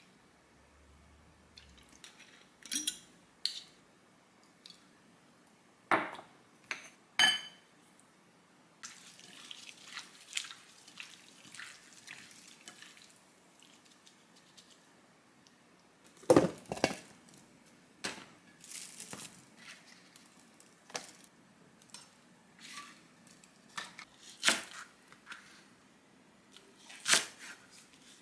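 Food-prep sounds: a spoon clinking against a glass bowl as sauce and seasonings go onto raw chicken, then the chicken squishing as it is mixed by a gloved hand, with a few scattered knocks. Near the end, a chef's knife cuts through green onion onto a plastic cutting board.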